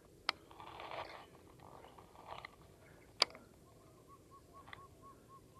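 A fishing rod and reel being handled: two sharp clicks about three seconds apart with a brief rustling whirr between them. In the second half a bird calls a quick, even run of about ten soft hooting notes.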